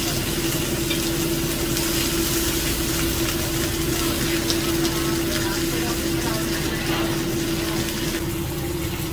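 Whole sea fish frying in hot oil in a wok, a steady sizzle, with a metal spatula now and then scraping the pan, over a steady hum that fits the range-hood fan.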